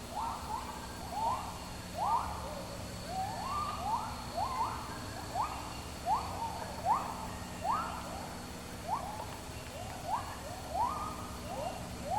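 Animal calls: a chorus of short upward-sweeping calls repeating one or two times a second, some overlapping, over a faint steady high whine.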